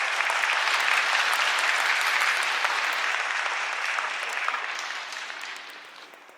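Crowd in a sumo arena applauding: dense clapping that starts abruptly and dies away over the last couple of seconds.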